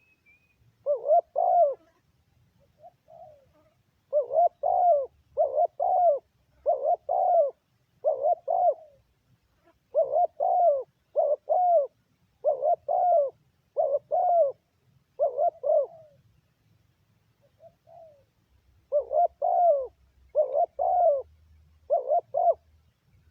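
Spotted dove cooing over and over in short phrases of two or three notes, with a few longer pauses between phrases.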